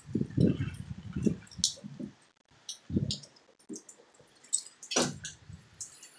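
Handling noise of a phone being moved about: irregular low rumbling bumps and scattered sharp clicks and crackles on its microphone, loudest in the first two seconds and again about five seconds in.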